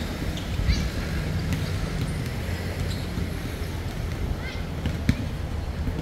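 City street ambience: a steady low rumble of traffic, with a few brief high-pitched sounds about a second in and again about four and a half seconds in.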